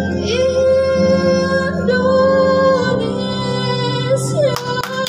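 A girl singing through a microphone and PA over an electronic keyboard accompaniment, holding long notes with vibrato and sliding down on a last note about four seconds in, where the music stops. Clapping begins just at the end.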